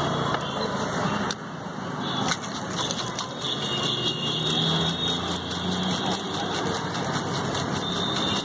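Steady roadside traffic noise with many small clicks and knocks over it.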